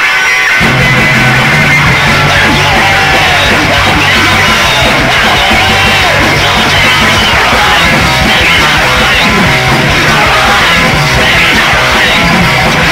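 Punk rock band playing a loud rock song with electric guitar, bass and drums. The low end of the band comes back in about half a second in, after a moment of guitar on its own.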